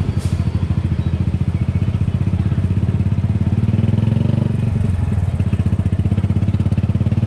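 Motorcycle engine running steadily close by, its firing a fast, even pulse that grows a little louder about four seconds in.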